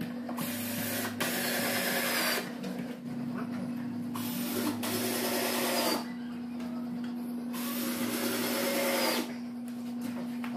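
Cordless drill driving screws into a plywood cabinet, in about four runs of one to two seconds each with pauses between, over a steady low hum.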